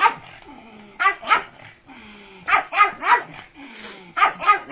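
Pug barking in quick bursts of two or three sharp barks, about eight barks in all.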